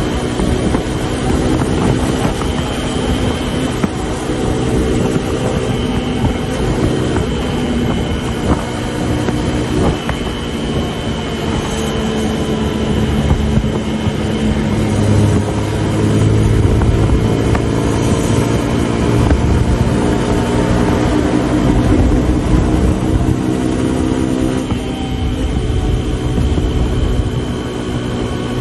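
Suzuki DR150's single-cylinder four-stroke engine running hard at high road speed, with wind rushing over the microphone. The engine note dips and climbs again about halfway through, then holds steady.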